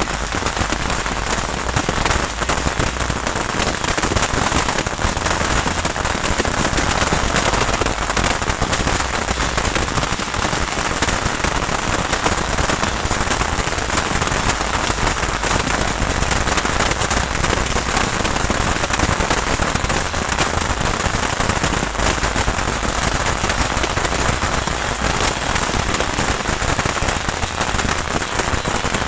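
A beehive fireworks rack firing: hundreds of small bottle rockets whizzing and popping at once in a dense, unbroken crackle that sounds almost like heavy rain.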